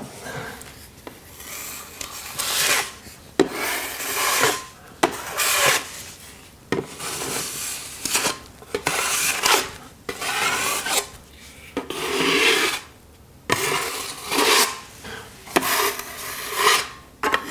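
Steel drywall knife scraping across the wall in repeated strokes, about one a second, spreading and smoothing a thin coat of joint compound (drywall mud) over a crack.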